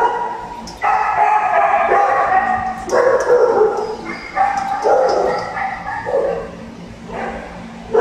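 Shelter dogs in their kennels crying out in long whining yelps, four in a row with short breaks between them.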